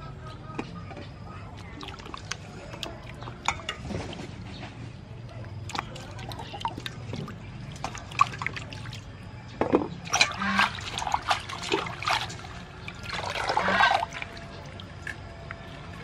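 Hands washing lettuce in a stainless steel bowl of water: splashing, sloshing and dripping, with busier, louder splashing from about ten seconds in and again near the end.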